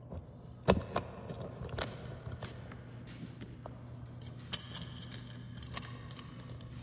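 Light metallic clicks and clinks of a bolt being handled and fitted through the bolt holes of a wheel rim, with a few sharper clinks about four and a half and six seconds in.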